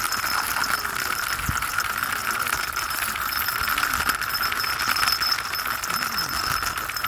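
Plastic toy horse on wheels pushed along by hand, its wheels rolling with a steady, dense rattle.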